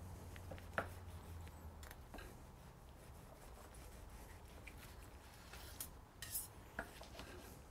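Faint sounds of a carving knife slicing through a roast stuffed boneless chicken, with a few short clicks of the knife and fork on the wooden cutting board, several of them near the end.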